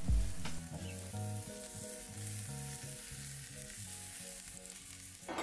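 Sliced onions frying and sizzling in a cast iron skillet in the doorway of a wood-fired brick oven, cooking toward caramelisation, under soft background music.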